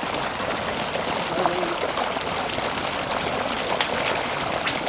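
Steady rush of running water, with a couple of faint clicks near the end.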